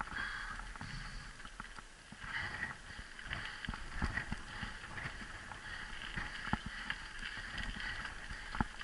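Mountain bike ridden fast down a dry dirt trail: tyres rolling over loose dirt and gravel, with the bike rattling and knocking over bumps throughout, and one sharp knock near the end.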